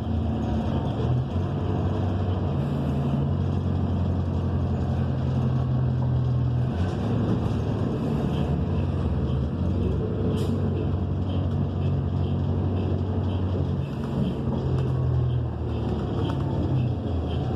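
Cabin sound of a New Flyer XN40 city bus under way: its Cummins Westport ISL G natural-gas engine and Allison automatic transmission drone low and steady, shifting in pitch several times as the bus changes speed or gear. One sharp click comes about ten seconds in.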